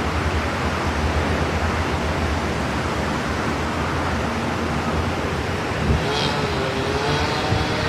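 Steady rushing noise of typhoon wind and rain mixed with street traffic. About six seconds in, a wavering pitched tone with several overtones joins it.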